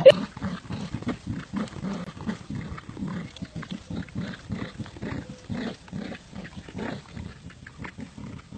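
Dogs growling in play while tugging on a toy, a long run of short, rough growls at about three a second.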